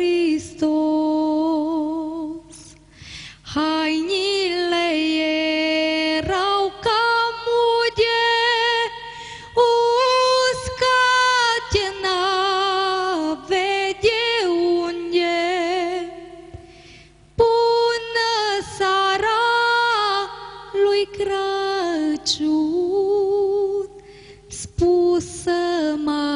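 A woman singing a Romanian folk song solo and unaccompanied, in long held notes with a wavering vibrato and ornamented turns, phrase after phrase with brief breaths between.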